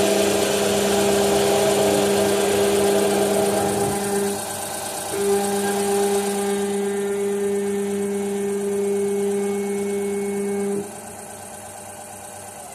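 Denford Novaturn CNC lathe facing off a bar, the spindle turning under a steady hiss while the jogged drive gives a steady humming whine. The whine breaks off briefly about four seconds in, then stops together with the spindle near the end.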